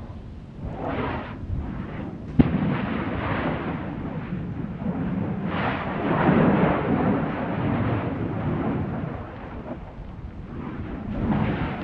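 Stromboli's crater vents erupting: repeated rushing, rumbling surges of gas and ejecta that swell and fade, the strongest about six seconds in. A single sharp crack comes about two and a half seconds in.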